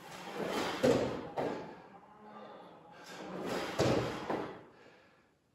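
Dull thuds and scuffs on the floor from a leg-workout exercise, in two bursts about three seconds apart, each with a couple of sharp knocks.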